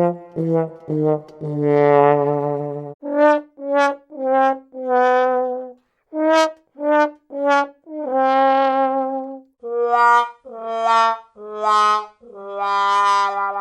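Sad trombone 'wah wah wah wahhh' fail sound effect played four times in a row: each time three short brass notes falling in pitch, then a longer, held last note.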